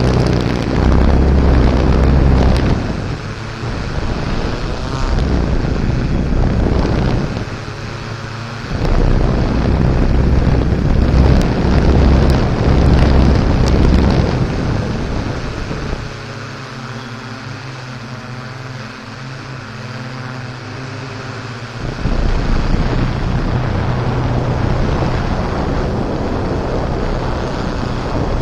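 Off-road vehicle driving, its engine running under heavy wind buffeting on the microphone. The rumble eases for several seconds past the middle, where the engine's hum comes through more clearly, then surges back.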